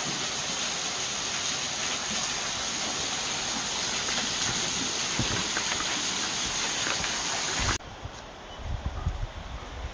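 Small waterfall pouring off a rock ledge onto the ground below, a steady splashing rush. It cuts off abruptly near the end, leaving a quieter rush with a few low thumps.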